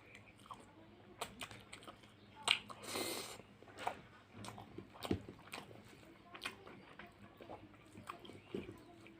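Close-miked chewing of fish curry and rice: wet mouth clicks and smacks scattered irregularly, with a short noisy rush about three seconds in.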